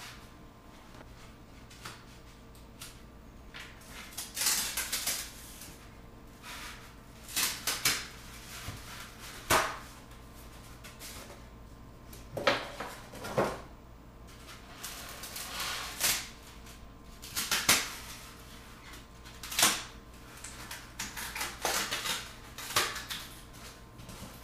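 Foam-board sheets being handled on a benchtop CNC bed: irregular taps, knocks and brief rustles a second or two apart, over a faint steady hum.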